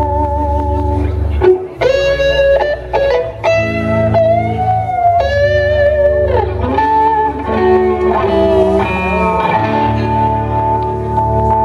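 Electric guitar playing slow, sustained lead notes with pitch bends and vibrato over held low bass notes, in a live band performance.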